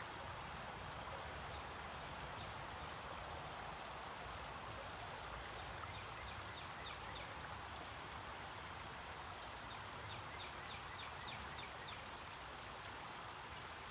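Water running and trickling steadily in a garden pond, with a few faint short high chirps in the middle and near the end.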